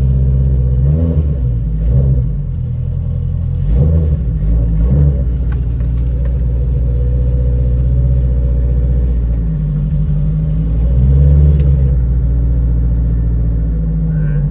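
Race car engine running on flex fuel: idling steadily, blipped a few times so the note rises and falls, about a second in, around four seconds in and again near eleven seconds.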